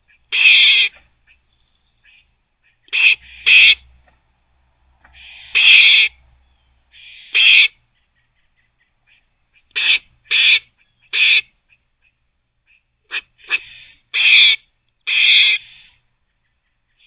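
Gray squirrel barking: about a dozen short barks, some single and some in quick pairs or threes, with pauses of one to two seconds between them.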